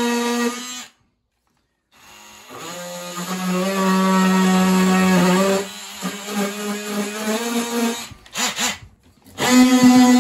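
Cordless trim router running on a wooden slat end. It stops for about a second, spins back up, and its pitch shifts and wavers as it cuts. Near the end it falters briefly before running steadily again.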